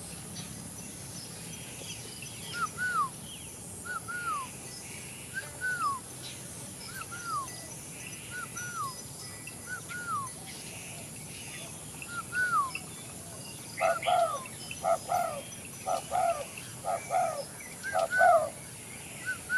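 A bird calling with a short, hooked, falling note repeated about every second and a half. About two-thirds of the way through, the calls turn into faster, fuller doubled notes.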